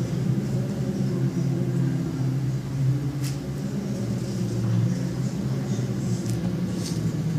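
Low, steady rumbling drone from the multimedia show's soundtrack over loudspeakers, with a few faint ticks.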